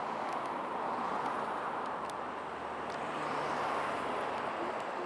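Steady traffic noise from a roadway, with a few faint, short whimpering calls from a California sea lion near the end.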